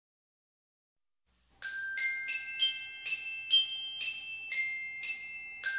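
Short glockenspiel-style music jingle: about ten bright, bell-like struck notes that ring and fade, starting after about a second and a half of silence.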